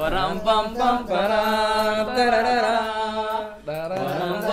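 A solo voice singing a slow, unaccompanied chant in long held notes that bend in pitch, with a short breath break about three and a half seconds in.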